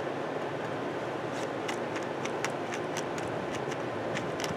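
Caulking gun being pumped to push silicone out of a freshly opened tube: a run of light, short clicks, about three a second, starting about a second and a half in, over a steady background hiss.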